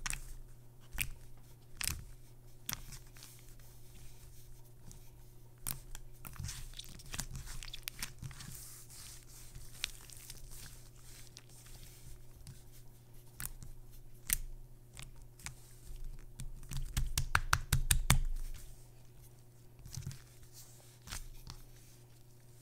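Thick, soft slime being kneaded and pressed by hand, giving sticky clicks and small pops. A fast run of crackling pops comes about three quarters of the way through and is the loudest part.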